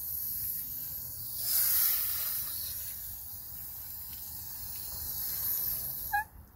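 Garden hose spray nozzle hissing steadily as water sprays onto a dog's wet coat and the ground, louder for a moment about a second and a half in. The spray cuts off suddenly near the end, with a brief high squeak.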